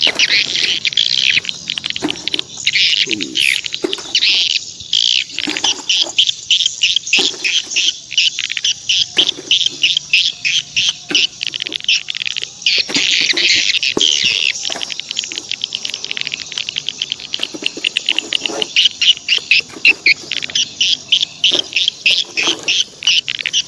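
Small birds chirping rapidly and without pause, a dense run of high, quick chirps, with a few low knocks underneath.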